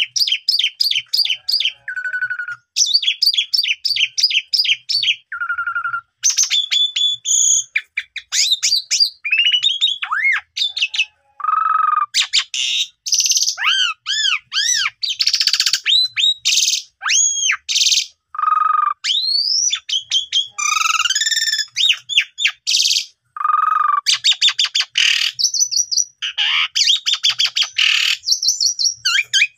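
Asian pied starling (jalak suren) singing vigorously and unloading its repertoire of mimicked calls. Fast chattering runs of repeated notes alternate with arching whistles and harsher notes, in quick phrases broken by brief pauses.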